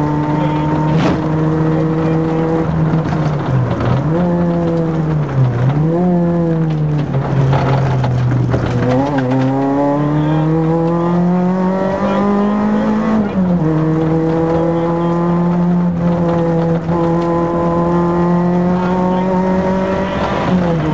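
Renault Clio Williams' 2.0-litre 16-valve four-cylinder engine heard from inside the cabin, driven hard on a rally stage. Its pitch holds high, dips briefly twice as the throttle is lifted, then climbs steadily for about four seconds and drops sharply at a gear change before holding high again.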